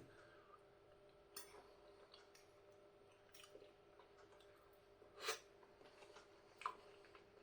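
Near silence with a few faint short clicks, three of them, the loudest about five seconds in.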